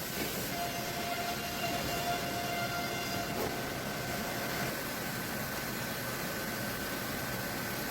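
Sawmill machinery running steadily: an even mechanical noise with a faint high whine, and a second, lower whine that stops a little under five seconds in.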